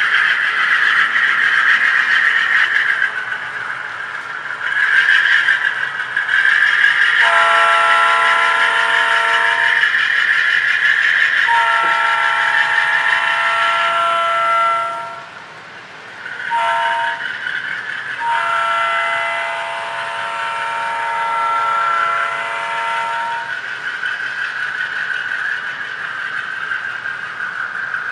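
HO scale GE U25C model's TCS WOWsound decoder playing diesel locomotive engine sound through its small speaker. Over it, a multi-chime air horn sounds four blasts, long, long, short, long: the grade-crossing signal.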